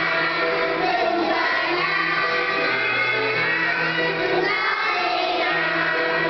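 A choir of young children singing together over instrumental accompaniment with held low bass notes.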